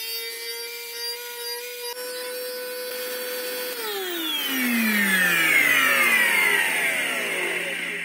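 Samsung VC-6714HNS vacuum cleaner's motor and fan running with a steady whine at even speed, the revs not hunting. About four seconds in it is switched off and winds down, its pitch falling steadily.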